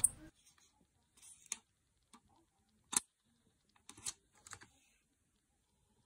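A few faint, scattered clicks and taps of handling noise around the opened laptop, the loudest about three seconds in.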